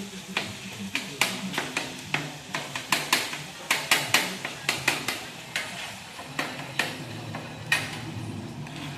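A kitchen utensil knocking and scraping against cookware while food is worked, with sharp irregular knocks about two or three times a second.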